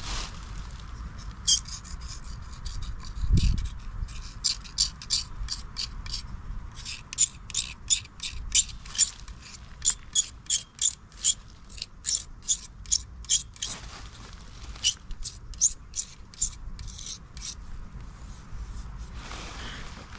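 Hand ratchet wrench clicking in runs of quick strokes, with a dull low thump about three seconds in.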